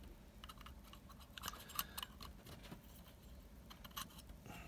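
Faint, scattered clicks and light scraping of plastic and metal parts as a dismantled EGR valve's motor unit is handled against its exposed gear housing.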